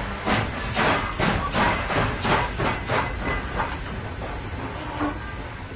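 Steam locomotive chuffing, its exhaust beats coming about three a second over a steady hiss and fading away.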